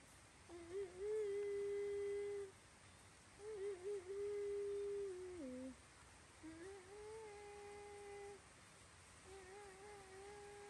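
A person humming a slow tune in four long phrases, each held on one note with a small wobble at the start and a drop in pitch at the end. The last two phrases are softer.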